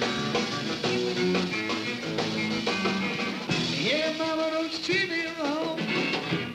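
Rock music with guitar. About halfway through, a sliding, wavering melody line comes in over the rhythm.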